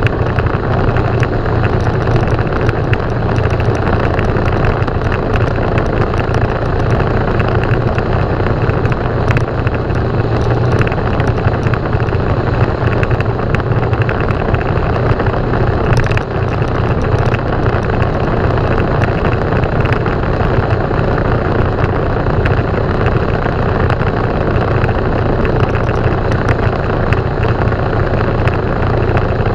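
Motorcycle engine running steadily under way, with a constant low hum and even noise and no change in pace, plus one brief tick about halfway through.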